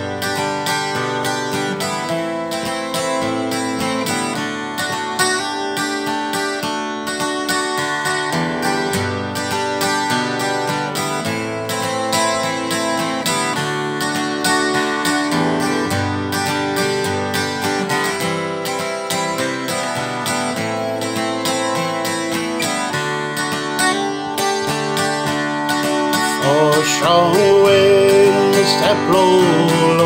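Acoustic guitar strummed steadily in chords, an instrumental lead-in. A man's singing voice comes in over the guitar about four seconds before the end.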